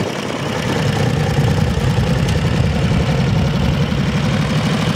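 Vintage motorcycle engine running with a loud, steady, rough note as the bike rolls in and settles to idle.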